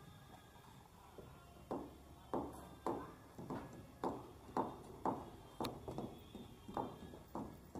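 Footsteps on a paved stone path, about two steps a second, starting a little under two seconds in.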